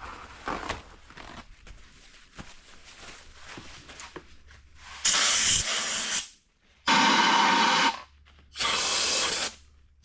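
Faint small clicks of parts being handled, then, from about five seconds in, four short hissing blasts of pressurized spray, each about a second long.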